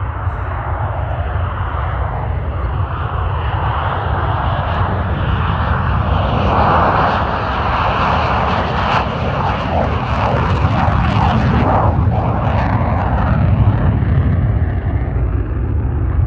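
Northrop T-38 Talon jet trainer on its takeoff roll, its twin General Electric J85 turbojets at full power. The jet noise builds and is loudest and most crackling about seven to twelve seconds in, then eases slightly as the jet moves away.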